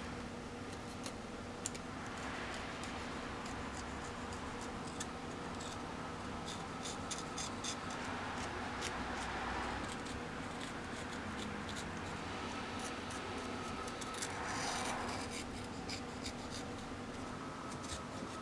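Hand-tool scraping and rubbing on a small workpiece: uneven scratchy strokes and small clicks, with a couple of longer rubbing swishes, over a steady faint hum.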